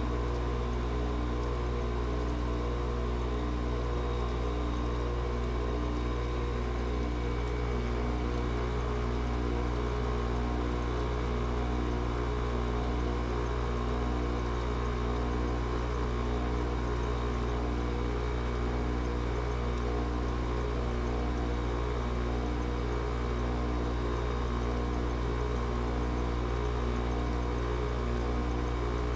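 GE 5,050 BTU window air conditioner running after a cold start at -4 degrees: a steady compressor hum with a deep low drone and an even, regular throb. It is running normally despite the cold.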